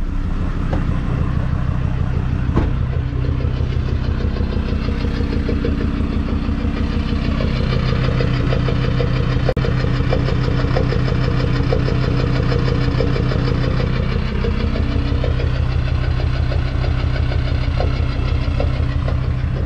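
Jeep Grand Cherokee WJ's 2.7 CRD five-cylinder common-rail turbo-diesel idling steadily, heard at the tailpipe. This engine blows white and black smoke, which the owner blames on worn piston rings.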